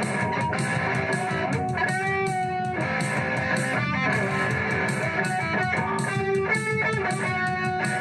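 Live electric guitar music: dense strumming at a steady loudness, with some held notes about two seconds and six seconds in.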